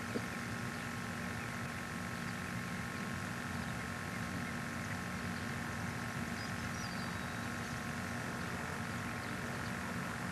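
Steady hum and hiss of an old home-video camcorder recording, a bed of fixed tones that never changes, with a faint high chirp of a bird about seven seconds in.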